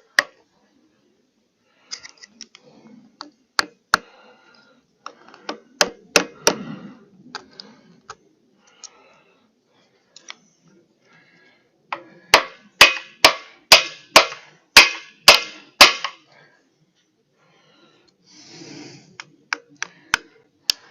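Metal hand tools clinking and knocking against a log splitter's steel hydraulic cylinder while working at its internal retaining ring. About twelve seconds in comes a run of about nine sharp metal strikes, roughly two a second, and a short scrape follows near the end.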